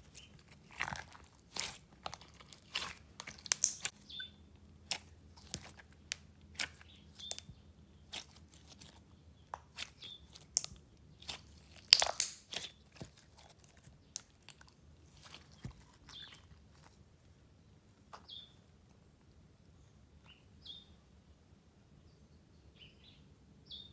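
Clear slime with shell-shaped and hexagonal glitter being stretched, folded and squeezed by hand, giving sharp crackling pops and clicks. The pops come thick and fast at first, with the loudest burst about halfway through as the slime is squeezed in a fist, then grow sparse.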